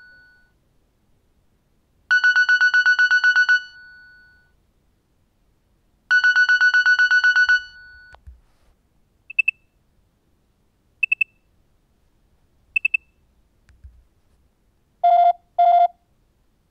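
Nokia 6600 alarm tones from the phone. First, two bursts of the 'Clock alert' tone, each about a second and a half of rapid beeps, about eight a second. Then three short high beeps about a second and a half apart ('Clock hi'), and near the end two short lower beeps ('Clock lo').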